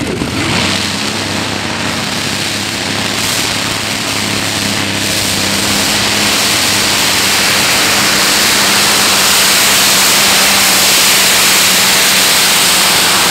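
Twin Allison V-1710 V12 aircraft engines of a methanol-fuelled modified pulling tractor running flat out under load while pulling the weight sled. A very loud, steady engine drone that builds slowly in loudness.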